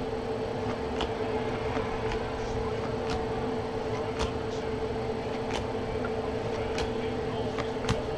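Stiff chrome trading cards being flipped through one at a time in the hands, a light click as each card is moved, about once a second, over a steady hum.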